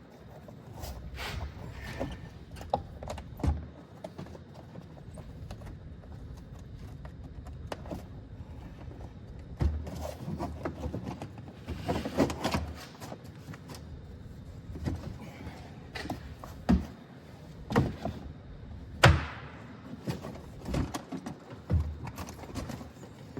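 Hands and tools working on vehicle parts with the engine off: scattered clicks, knocks and clunks, with a few louder thuds, the sharpest about nineteen seconds in.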